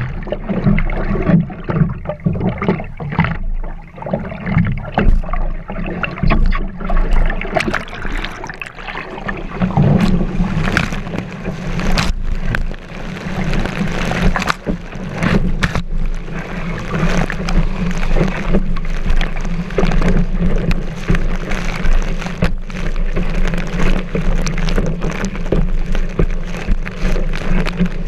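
Water sloshing and splashing against a kiteboard with a GoPro mounted on the board. Choppy and uneven at first while the rider lies in the water, then a steadier rush of water and spray from about ten seconds in, once the board is moving.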